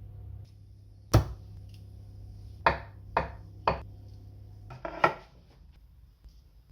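Knife chopping down onto a cutting board in sharp strikes: one about a second in, three about half a second apart, and a doubled strike near the end.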